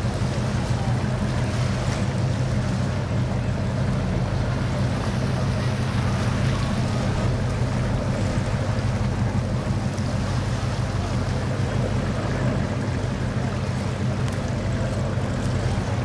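Deep, steady rumble of a Fountain 38 powerboat's engines running at idle while the boat moves slowly.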